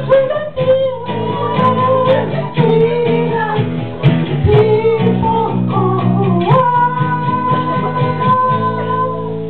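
A man singing a slow ballad over strummed acoustic guitar chords, ending on one long held note over the last few seconds.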